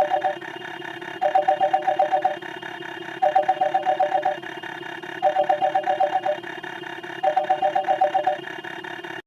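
Electronic phone-ring sound effect: a rapid two-tone warbling trill in five bursts, each about a second long with about a second's gap, over a faint steady hum.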